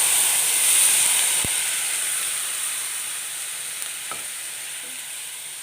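Hot water poured into a pan of hot coconut oil with fried chillies and chilli powder, setting off a loud sizzle that slowly dies down. A faint tap about one and a half seconds in.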